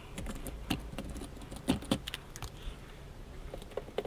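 Sharp clicks and light clinks of lithium battery pack parts being handled during a teardown, the loudest a little under two seconds in, with smaller ticks near the end.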